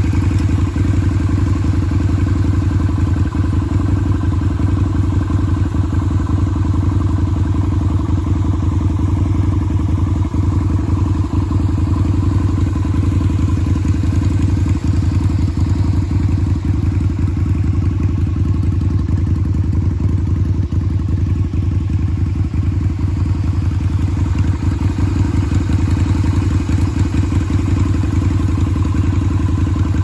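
Water pouring over a small concrete check dam into the stream below, a loud, steady low rumble.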